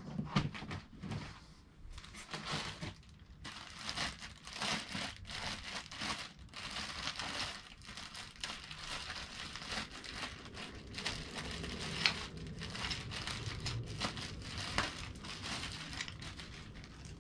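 Crinkling and rustling of a plastic parts bag being handled and opened, mixed with cardboard box flaps and foam packing being rubbed and knocked, with one sharper click partway through.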